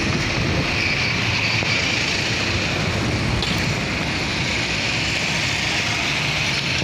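Steady vehicle engine and road noise heard while riding along a busy road, with a constant hiss and low rumble.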